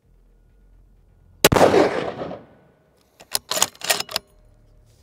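A single shot from a muzzle-braked Ruger Precision Rifle in .338 Lapua Magnum about one and a half seconds in, its report trailing off over most of a second. About a second and a half later comes a quick run of five or six sharp metallic clicks as the bolt is worked to eject the case and chamber the next round.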